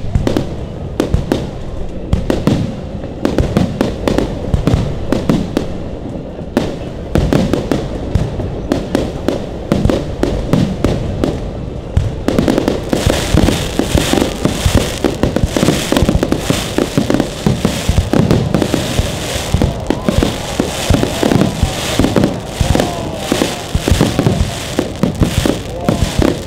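Fireworks display: aerial shells bursting in quick succession, a dense run of bangs. From about twelve seconds in, a continuous crackling hiss joins the bangs as the barrage thickens.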